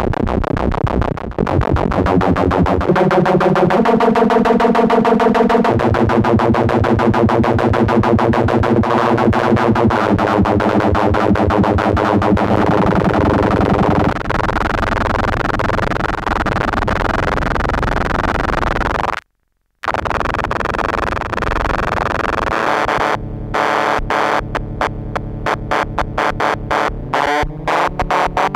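Stylophone S2 analog synthesizer playing buzzy held notes under a fast pulsing modulation, stepping between pitches. It cuts out completely for a moment about two-thirds of the way through, then turns into a choppy, stuttering gated rhythm near the end.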